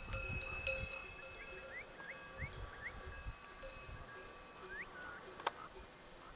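Bells on a grazing flock of sheep ringing irregularly, the strikes thickest in the first second or so and sparser after. Short rising chirps sound between them, and there is a single sharp click about five and a half seconds in.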